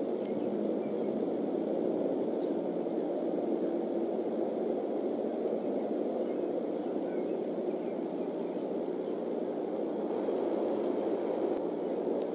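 Steady, even rushing noise from the nest-cam microphone, with no calls from the eaglets.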